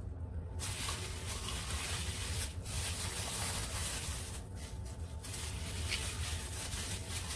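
Thin plastic bag rustling and crinkling as hands work a whole raw chicken inside it; it starts about half a second in and pauses briefly twice.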